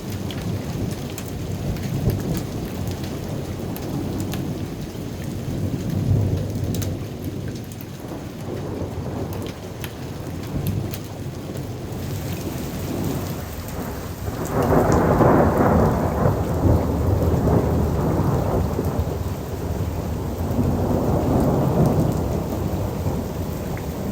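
Heavy rain falling, with the odd hailstone ticking early on, over a steady low rumble. The rain swells louder twice in the second half.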